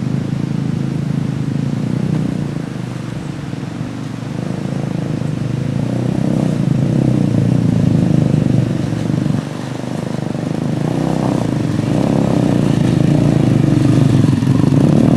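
Small road motorcycles' engines running at low speed as they ride over a rough, rocky track, the engine sound swelling and easing. The level drops abruptly about nine and a half seconds in, then builds again.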